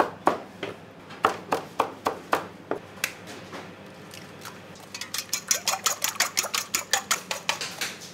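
Kitchen utensils knocking and clicking: scattered sharp knocks at first, then a fast, even run of clicks over the last three seconds, with a steady low hum underneath.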